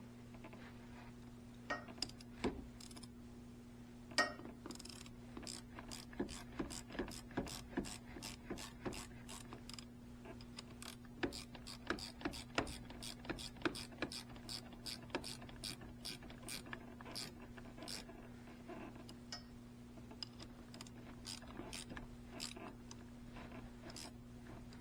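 Hand ratchet clicking in many short, repeated strokes, tightening the bolt on a battery cable terminal made of fairly soft metal, over a steady low hum.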